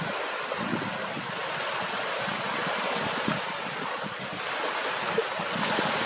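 Wind and small waves on open water: a steady hiss of wind and lapping water, with irregular low gusts buffeting the microphone.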